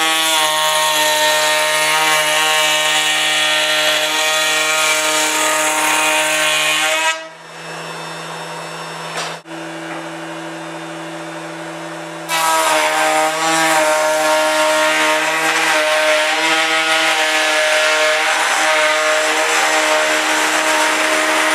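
A woodworking power tool cutting wood: the motor's steady whine with a loud cutting hiss over it. About seven seconds in the cutting noise stops while the motor keeps running, and it resumes about five seconds later.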